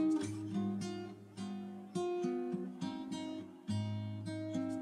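Background music: acoustic guitar playing plucked notes and chords, each ringing out and fading before the next.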